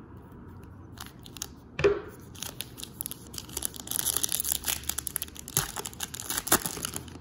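Plastic wrapper of a Topps Bowman baseball card pack crinkling and tearing open as the card stack is pulled out, a dense run of crackling from about two and a half seconds in. A single short thump comes just before it.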